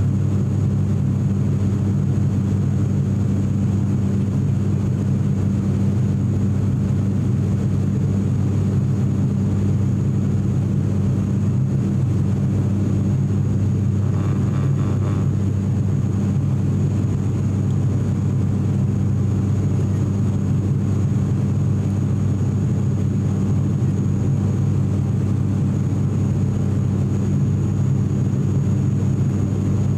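Cabin drone of an ATR 42-600 climbing after takeoff, heard beside the propeller: its Pratt & Whitney PW127 turboprop engines and six-blade propellers running steadily, a deep even hum with strong low propeller tones.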